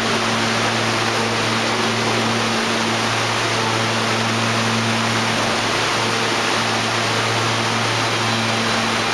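Steady hum and hiss of an R160B subway train standing at the platform, with a constant low drone under an even rushing noise.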